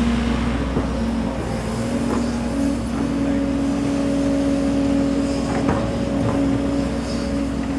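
JR 415 series electric train approaching: a steady hum with a low tone and a higher tone over a low rumble, the lower tone stepping up slightly about two seconds in.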